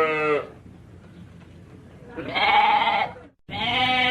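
Sheep bleating: the tail of one bleat at the start, a full wavering bleat a little past two seconds in, and another starting near the end just after a brief silent break.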